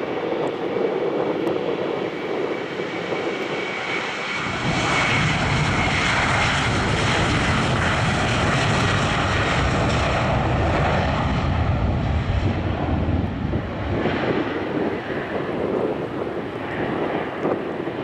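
Boeing 737-900 jet engines (CFM56-7B turbofans) at takeoff power on the takeoff roll. A high fan whine comes first, then a deep rumble swells about four seconds in, holds through the middle and eases off as the jet moves away down the runway.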